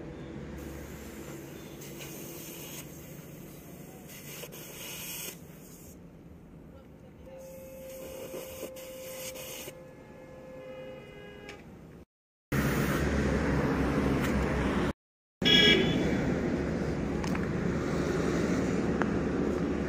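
Compressed air hissing on and off from an air hose as a scooter tyre is inflated. After two brief cuts, steady outdoor traffic noise, louder.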